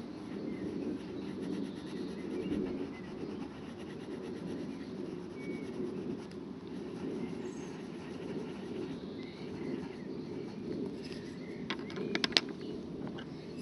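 Steady low outdoor background rumble with a few faint bird chirps, and a quick run of sharp clicks near the end.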